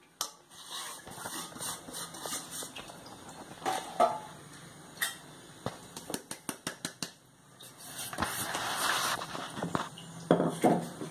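Dry flour being tipped from a steel plate into a stainless steel bowl and stirred by hand: scattered clinks and taps of steel on steel. There is a quick run of light taps about six seconds in, and a soft rustling scrape a little after eight seconds.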